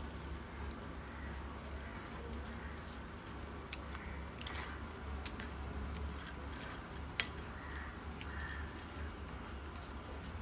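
A hand mixing spiny gourd slices into a gram-flour coating in a steel bowl: scattered light clicks and clinks against the steel, over a steady low hum.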